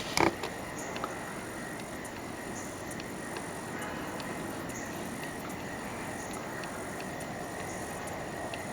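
Steady outdoor background hiss with a faint, steady high-pitched tone running through it, and one short knock about a fifth of a second in.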